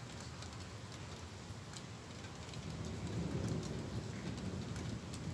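Light rain falling, with scattered drops ticking close by, and a low rumble of distant thunder that swells about halfway through.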